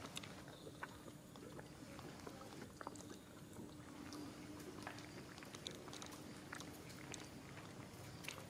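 Quiet outdoor background with scattered faint clicks and taps and a faint steady low hum.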